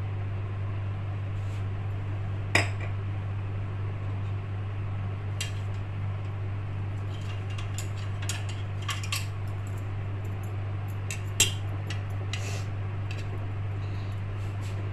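Scattered clinks and light knocks of dishes and a spoon being handled on a kitchen counter: one knock about two and a half seconds in, a cluster around the middle, and another sharp knock later. A steady low hum runs underneath.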